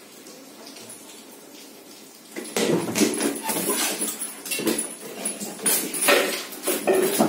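A Great Dane puppy moving about among its chewed-up bedding and scattered debris on a tiled floor: rustling and clattering begin about two and a half seconds in and carry on as a busy run of knocks and scrapes.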